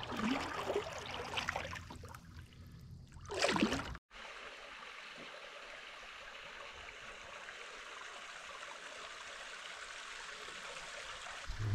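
Water sounds from a canoe under paddle: irregular splashes and drips over a low rumble of wind on the microphone. About four seconds in the sound cuts and gives way to a steady, even rush of running water.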